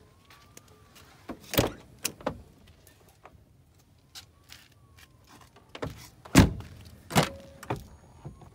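Doors of a Mercedes-Benz W123 sedan being opened: sharp latch clicks and knocks, one cluster about a second and a half in and another from about six seconds in.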